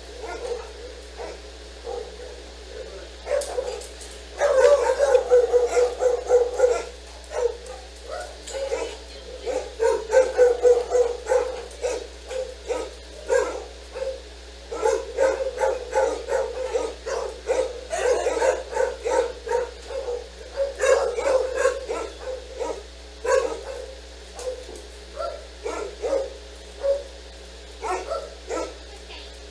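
Dog barking in quick runs of short barks with brief pauses between, over a steady low hum.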